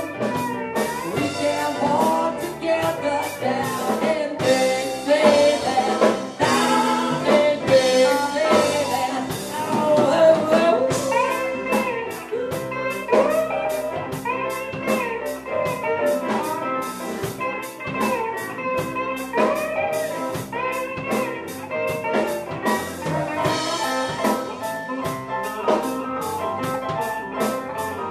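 Live band playing, with singing over electric guitar and a drum kit keeping a steady beat.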